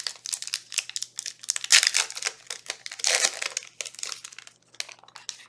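Foil Yu-Gi-Oh booster pack wrapper crinkling as it is handled and torn open: a run of crackling rustles with louder bursts about two and three seconds in, dying away near the end.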